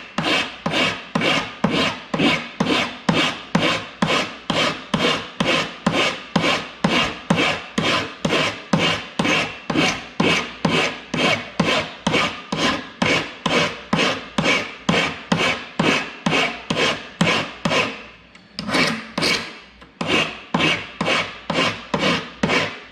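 A big flat hand file rasping across a soldered metal piece in even push strokes, about two a second, with a brief pause about 18 seconds in. The file cuts on the push only, taking down a ledge of excess metal and solder at the joint.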